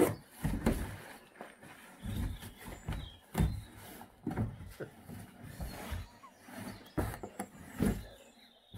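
A Newfoundland dog nosing and pushing its head against a large cardboard box, giving irregular dull thumps and scuffs of cardboard, about one or two a second.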